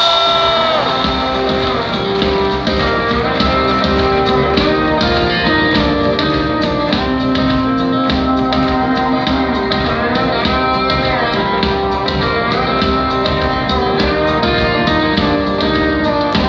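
Live band music played loud through a concert PA, led by guitar with a steady beat under sustained notes.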